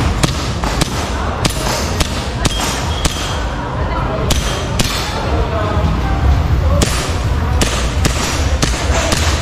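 Airsoft pistol firing a rapid, irregular string of sharp shots during a practical shooting stage, with metallic clanks of pellets hitting targets. There is a pause of about two seconds in the middle before the firing picks up again.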